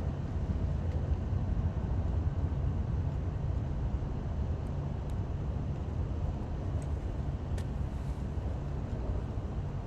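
Steady low outdoor rumble, with a faint click about seven and a half seconds in.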